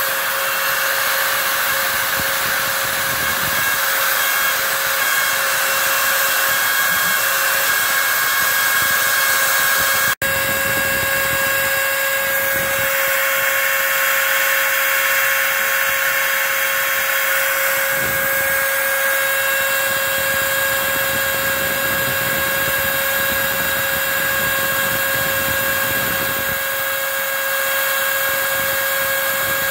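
Router spindle of a home-built CNC machine running steadily while it mills pockets into foam, a constant high whine over a wide hiss, with a vacuum drawing chips away through the hose. The sound drops out for an instant about ten seconds in.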